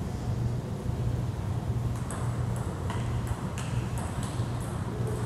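Table tennis balls clicking sharply off paddles and tables, an irregular scatter of light ticks that starts about two seconds in, over a steady low hum in the hall.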